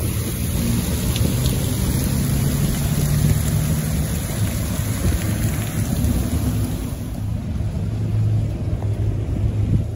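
Fountain water splashing steadily into its stone basin, with a low rumble of wind buffeting the microphone.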